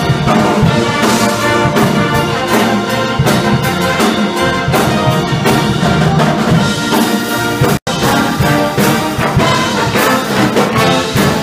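Pep band playing a loud brass tune, trumpets and sousaphones over drums. The sound drops out for a split second about eight seconds in.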